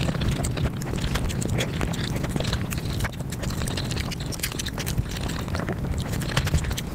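Close-miked eating sounds played at five times speed: chewing and mouth noises turned into a dense, fast patter of clicks over a low rumble.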